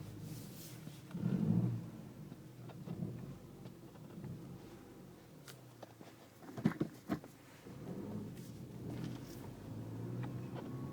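VW Scirocco 2.0 TSI's four-cylinder turbo petrol engine running as the throttle is pressed and let off, swelling and falling several times, with a weird noise from the manual gearbox. A quick cluster of sharp knocks comes just past the middle.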